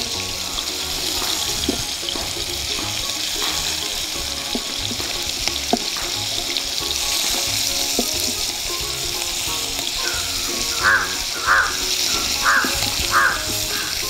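Marinated parrot fish pieces sizzling steadily as they shallow-fry in hot coconut oil, with a wooden spatula scraping and turning them in the pan; a few short, evenly spaced scrapes near the end.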